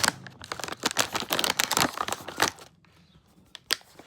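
A plastic bag of Halls cough drops crinkling and tearing as it is opened by hand. The dense rustling runs for about the first two and a half seconds, then gives way to a few single crackles.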